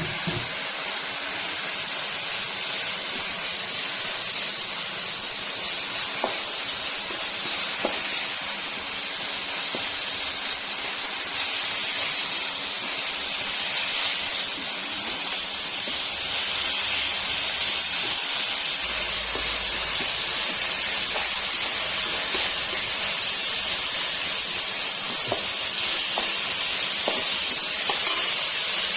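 Food sizzling in a hot pan: a steady hiss with a few faint pops, getting slightly louder about halfway through.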